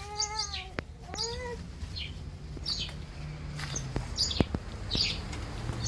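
A meow-like call that rises and falls, then a shorter rising one about a second in, followed by small birds chirping now and then in short, high chirps.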